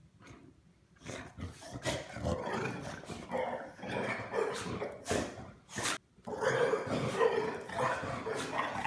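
A shar pei and a shiba inu play-fighting, with rough growls and scuffling noises starting about a second in and a brief pause about six seconds in.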